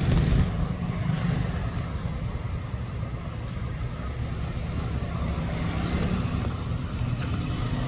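Road traffic with a small hatchback, a Hyundai Santro, driving up and slowing, and a motorcycle passing in the second half. The rumble is steady and low, with a single knock at the very start.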